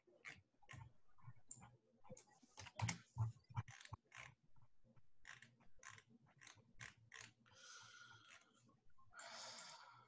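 Faint, irregular clicking and tapping of a computer keyboard and mouse, with two short puffs of rushing noise near the end.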